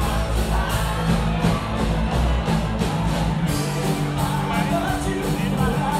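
Live rock band playing, with guitars, bass, a steady drum beat and singing. Recorded from the crowd on a phone, so the sound is rough.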